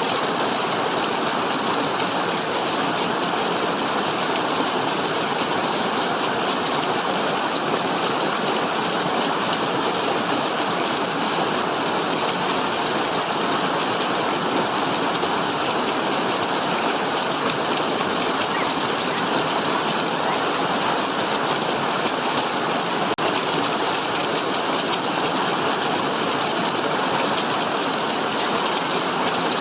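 Steady rush of water, an even hiss that does not change or break.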